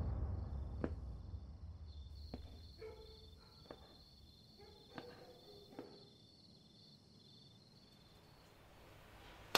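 Crickets chirping faintly and steadily at night. A low drone fades away over the first couple of seconds, and a few soft knocks fall in the first six seconds.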